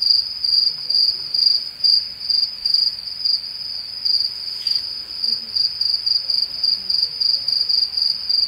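Crickets chirping, a loud high trill pulsing about twice a second: the stock 'crickets' sound effect for an awkward silence.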